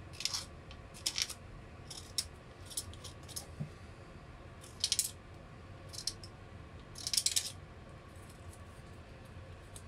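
Short, sharp scraping strokes at irregular intervals as a hand tool shaves a bevel into the opening of a speaker's tweeter mounting plate. The opening is being widened so that the replacement tweeter's thicker outer diaphragm fits.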